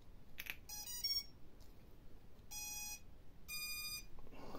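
Brushless quadcopter motors beeping the BLHeli_S ESC start-up tones as the battery is connected. A click, then a quick rising run of short notes, then a long lower beep and a long higher beep about a second apart, the ESCs' sign that they have powered up and detected the flight controller's signal.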